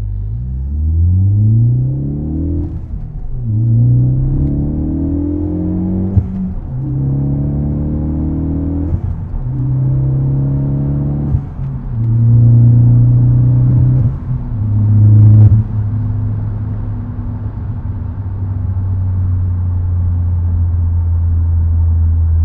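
Ford Focus ST's turbocharged four-cylinder through a COBB 3-inch stainless cat-back exhaust, heard from inside the cabin accelerating from a standstill. The revs climb and drop back at each upshift several times, then settle into a steady low drone for the last several seconds.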